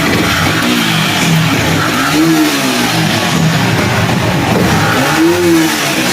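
Yamaha MT-15 single-cylinder motorcycle engine running and being revved, rising and falling in pitch twice, about two seconds in and again near the end.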